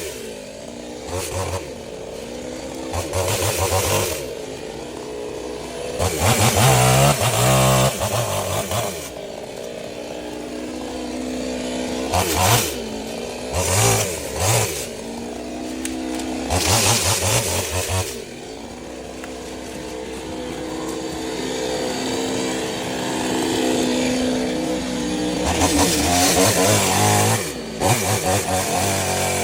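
Chainsaw engine running, throttled up in repeated loud bursts of a second or two between stretches of lower running, as when cutting through the dead mango tree's wood.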